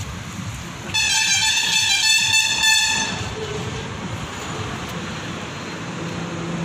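A horn blows once, one steady high note held for about two seconds, over steady outdoor background noise.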